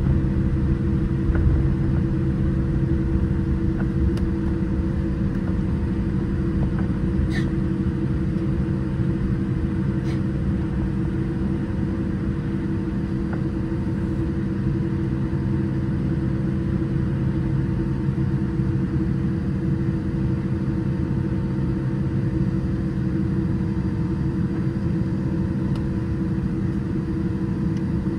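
Boeing 787-8 cabin noise while taxiing, heard from inside the cabin: the GEnx engines at idle as a steady hum and rumble with a few constant tones, with a couple of faint clicks partway through.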